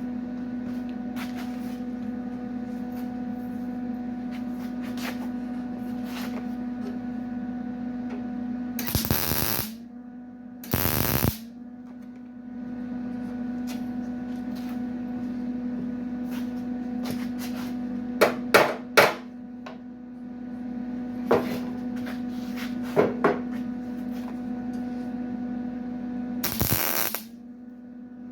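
Patch panel being tack-welded and hammered into a rusted 1951 Chevrolet pickup tailgate. There are three short, loud hissing tack welds, two close together around the middle and one near the end, with a few sharp hammer taps between them. A steady electrical hum runs underneath and drops out during the welds.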